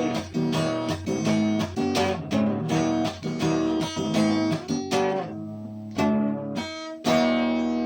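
Acoustic guitar strummed in a steady rhythm, thinning to a few spaced strums and a final chord that is left ringing, closing the song.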